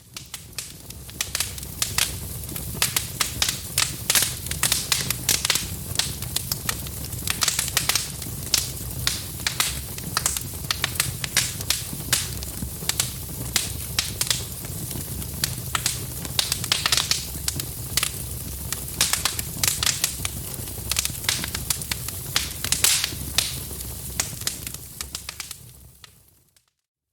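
Wood fire in a fireplace crackling, with many small irregular pops and snaps over a low, steady sound of flames. It fades in at the start and fades out near the end.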